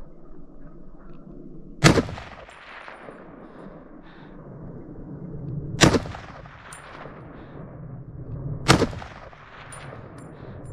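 Three gunshots, about two, six and nine seconds in, each followed by a short echoing tail.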